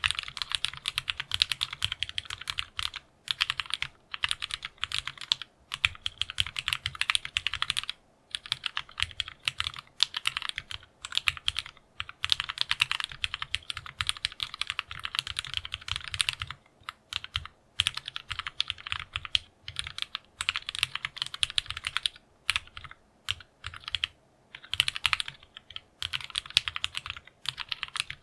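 Fast, continuous typing on a TGR × Linworks Dolice mechanical keyboard with polished and lubed Cherry MX Black Hyperglide linear switches on a polycarbonate plate, no foam, and PBT Dolch keycaps. Rapid runs of keystrokes are broken by brief pauses every second or two.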